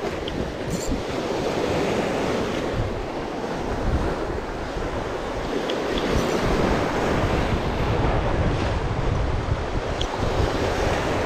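Sea surf washing and breaking over shoreline rocks, a steady wash with wind buffeting the microphone.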